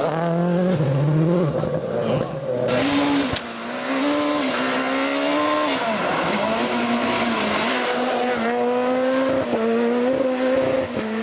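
Rally car engine at full throttle, its note climbing and dropping again and again through gear changes and lifts, with a sharp crack a little over three seconds in.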